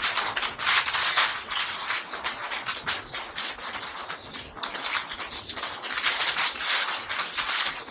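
A moving passenger train: a steady rushing noise of wheels on rail and passing air that swells and fades.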